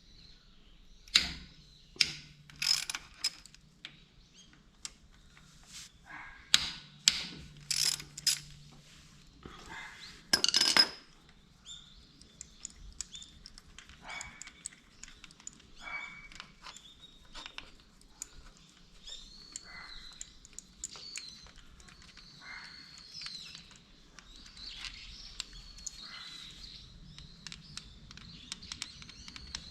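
Metal tools and engine parts clinking and knocking on a workbench as the Honda N360 engine's crankcase is dismantled, with a burst of loud clanks about ten seconds in. After that only faint, repeated high chirps are heard.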